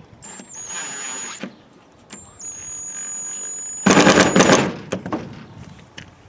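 DeWalt cordless drill driving screws into a wooden door latch: the motor whines in two runs, the second ending in a loud rattling burst about four seconds in.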